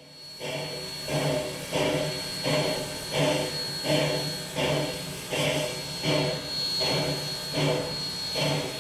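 Standing C17-class steam locomotive with its steam-driven air pump working in a slow, even rhythm of about three strokes every two seconds, over a steady hiss of steam and a thin high whistling tone.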